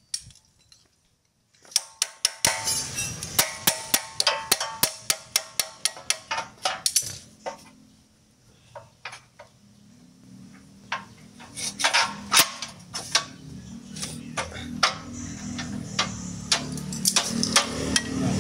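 Hammer blows and clanks on metal during car underchassis repair: repeated sharp, ringing strikes, about two a second at first and more scattered later. A low hum rises underneath from about halfway.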